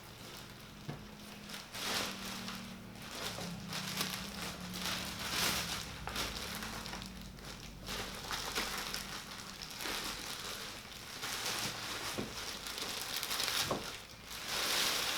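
Cardboard box and plastic packaging rustling and crinkling in repeated handfuls as a PC case is worked out of its box.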